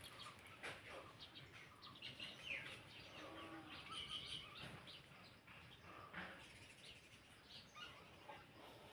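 Faint bird chirps and short calls, scattered through a quiet woodland background.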